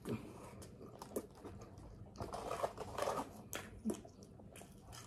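Close-miked eating of a turkey sub sandwich: a bite into the soft roll right at the start, then chewing with wet mouth clicks and smacks, louder from about two seconds in.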